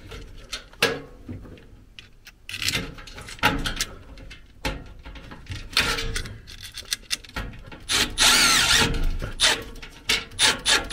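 Cordless power driver driving screws in short runs, with clicks and rattles of handling between them. The longest and loudest run comes about eight seconds in, its motor whine wavering.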